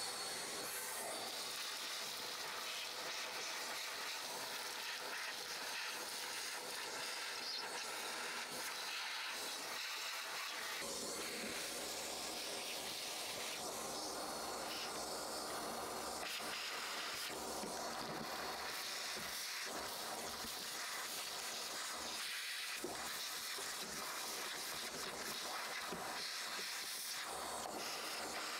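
Steady airy hiss of the excavator cab's ventilation fan blowing.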